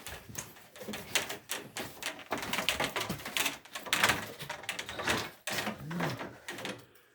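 Rapid, irregular clicking and clattering from hand work on plumbing parts.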